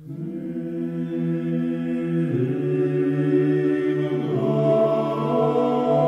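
Background music: slow vocal chant of long held notes sung together in chords. It starts suddenly and moves to a new chord about two seconds in and again about four seconds in.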